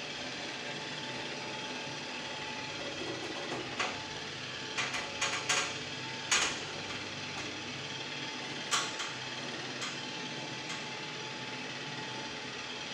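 Home-made stairlift's drive running steadily as the seat climbs its rail under a seated rider, with a handful of sharp clacks about four to six seconds in and one more near nine seconds.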